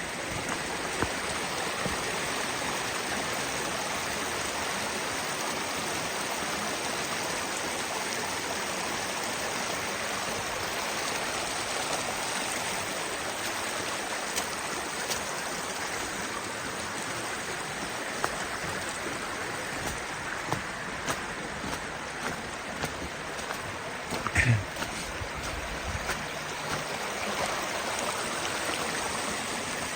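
Kanarra Creek's flowing water, a steady rushing through the canyon, with scattered small clicks and one brief, louder sound with a changing pitch about three-quarters of the way through.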